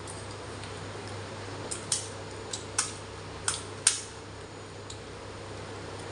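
Crisp, hollow fried fuchka (pani puri) shells cracking: about six short sharp snaps between two and five seconds in, the loudest near four seconds, over a steady low hum.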